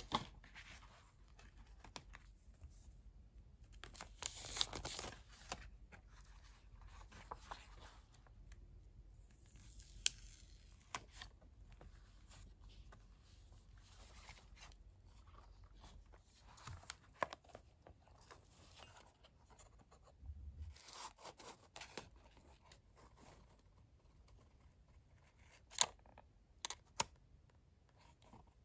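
Hands handling paper and stationery: rustling and crinkling of paper sheets and packaging with scattered sharp clicks and taps, the loudest rustle about four seconds in and a pair of sharp clicks near the end.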